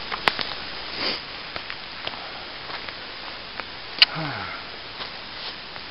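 Scattered sharp clicks and knocks from handling a folding bushcraft bow saw with a metal frame. The loudest is about four seconds in, followed by a short sound falling in pitch.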